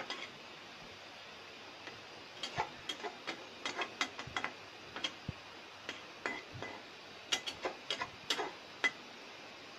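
A spatula stirring and pressing noodles in a metal wok, making irregular taps and clinks against the pan in quick clusters.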